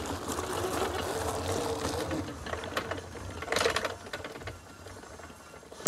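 Small electric ride-on's motor whining steadily for about two seconds, falling slightly in pitch as it slows, over a low rumble of tyres rolling on gravel and grass. A few short clicks and knocks follow as it comes to a stop.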